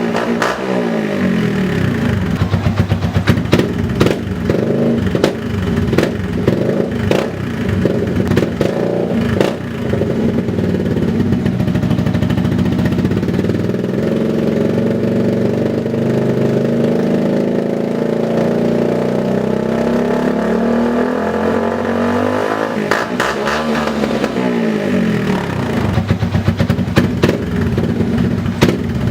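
Yamaha Vixion single-cylinder four-stroke engine running through an R9 aftermarket exhaust routed under the belly, revved up and down a couple of times, near the start and again about 23 seconds in. Many sharp pops and crackles break into the exhaust note: the engine is still coughing and sputtering.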